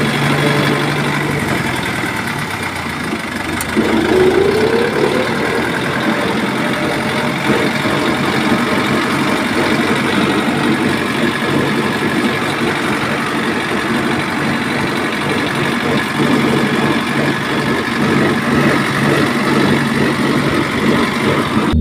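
A steady engine-like running sound, with a short rising whine about four seconds in.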